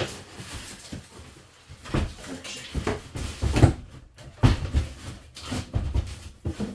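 Cardboard box and styrofoam packing of a mid-tower PC case being handled as the box is flipped upside down and worked off. Irregular knocks and thumps with rustling and scraping, the loudest in the middle few seconds.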